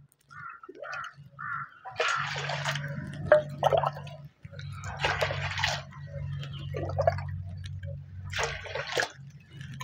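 Hot water being ladled out of a clay pot and poured into a steel basin: a few drips, then three splashing pours a few seconds apart.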